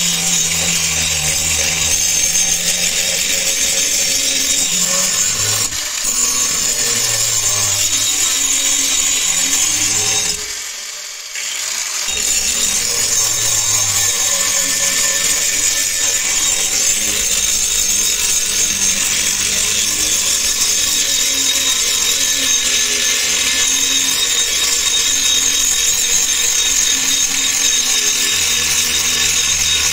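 Angle grinder with an abrasive disc grinding the rusted steel of a meat cleaver blade: a steady, loud, high grinding hiss. It drops away briefly about ten seconds in, then resumes.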